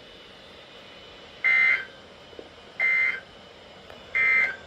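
Emergency Alert System end-of-message data: three short bursts of buzzing two-tone digital data, about a second and a half apart, the code that closes a weather alert broadcast.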